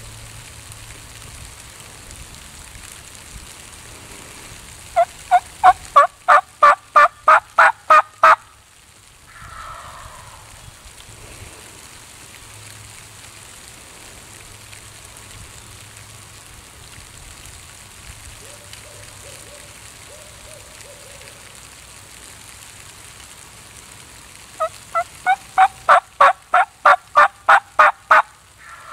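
Wild turkey yelping: a run of about a dozen loud, evenly spaced yelps, about three a second, heard twice. Each run is followed about a second later by a short gobble from a tom turkey answering.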